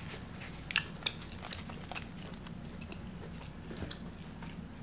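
A person chewing a mouthful of steak burrito close to the microphone, with scattered small clicks throughout, over a low steady background hum.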